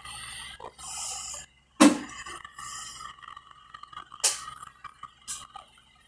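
Sharp top-load automatic washing machine starting a spin-dry cycle: a low steady hum with short bursts of hissing and a loud clunk about two seconds in, then lighter knocks.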